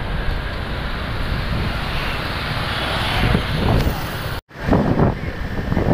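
Wind buffeting the microphone of a camera on a moving motorbike, over steady road and traffic noise. The sound cuts out for an instant about four and a half seconds in, then comes back in uneven gusts.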